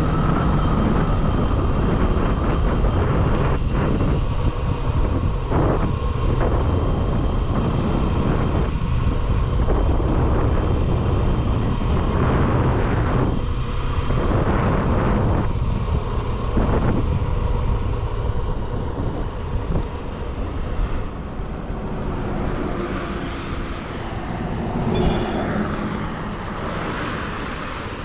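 Bajaj Pulsar motorcycle on the move: steady engine and road noise with the rush of riding, getting somewhat quieter after about twenty seconds.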